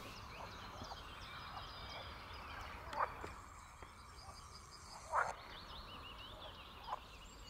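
Mallard ducklings peeping faintly and repeatedly, with three short, lower calls about two seconds apart from the brood.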